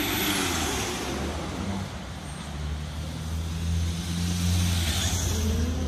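A car drives past with a falling engine note, then a motorcycle passes with a steady low engine drone. Near the end there is a rising engine note, a rev.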